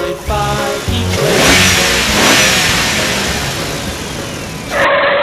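Vehicle engine revving sound effect, a loud noisy rush with faint sliding tones that starts about a second in after a few notes of children's music. A short, loud, horn-like burst with several steady tones comes near the end.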